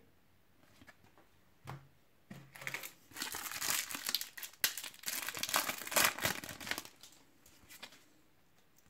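Foil wrapper of a Topps Match Attax trading-card booster pack crinkling as it is torn open, a dense crackle lasting about five seconds and starting a couple of seconds in.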